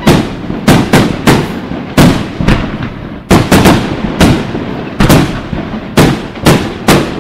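Aerial fireworks display: shells bursting in a rapid, uneven series of more than a dozen loud, sharp bangs, each trailing off before the next.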